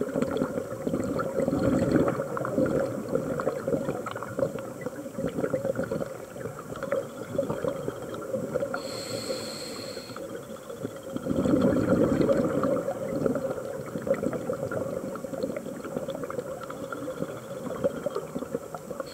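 A scuba diver's regulator breathing underwater: a short hissing inhale about nine seconds in, between two bubbling exhalations, one near the start and one around twelve seconds.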